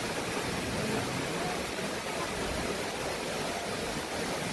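Steady, even rushing noise of water, with no separate splashes or knocks.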